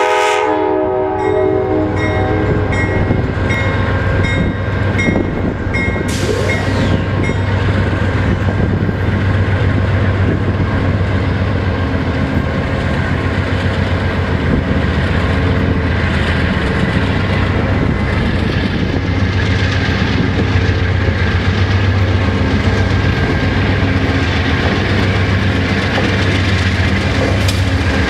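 Amtrak GE P42 diesel locomotive sounding the end of a horn blast at the very start, the chord dying away over the next couple of seconds. Its engine then runs loud and steady with the rumble of wheels on the rails as the train approaches.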